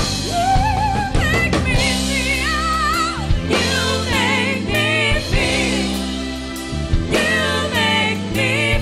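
A band playing a song with a lead singer: sung lines with vibrato over steady bass notes and accompaniment.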